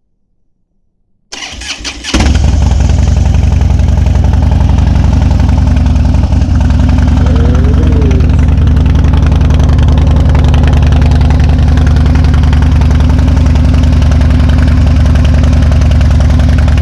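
Harley-Davidson V-twin motorcycle engine started first thing in the morning: it cranks briefly about a second in, catches, and settles into a loud, steady idle.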